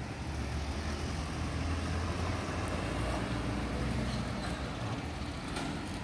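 City road traffic: a steady low rumble of vehicles on the street, swelling a little in the middle.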